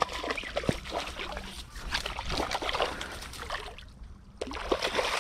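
Water lapping and sloshing at the bank's edge, with scattered small clicks and rustles.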